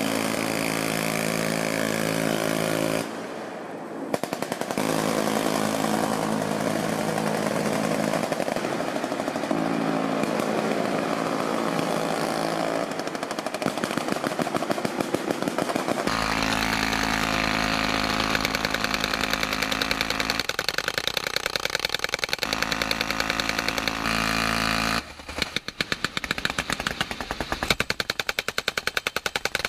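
M134 miniguns on river patrol boats firing long bursts at a very high rate, heard as a continuous buzz, over boat engines that rumble more heavily in the middle. Near the end a belt-fed machine gun fires rapid strings of separate shots.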